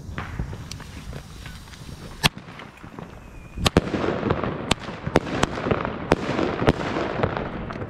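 Katan Thunder King firecrackers going off one after another: a single sharp bang about two seconds in, then a quick irregular string of bangs through the second half.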